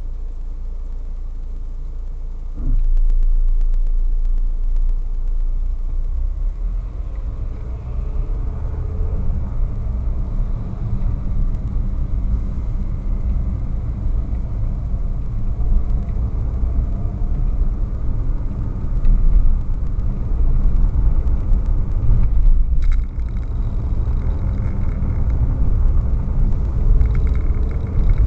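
Car interior noise picked up by a dashcam's built-in microphone. The engine is idling at a stop, then a little under three seconds in the car pulls away and a louder low engine and road rumble takes over for the rest of the drive.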